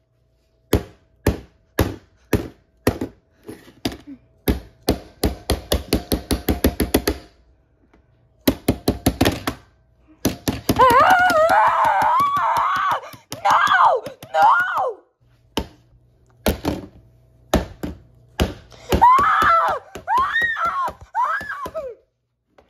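Repeated taps and knocks on a camera body, first a few spaced taps and then quick runs of several taps a second, an attempt to free a stuck lens. A high-pitched voice-like sound wavers over the taps twice, in the middle and near the end.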